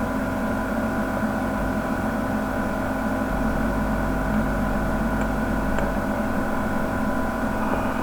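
Steady electrical hum and whine made of several constant tones, with no change.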